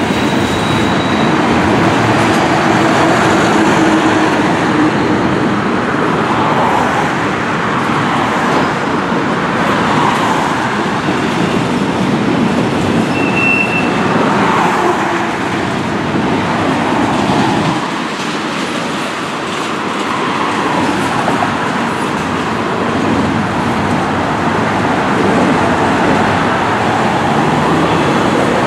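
Double-stack intermodal freight train's well cars rolling past, a steady rumble of steel wheels on rail, with cars passing on the road in front.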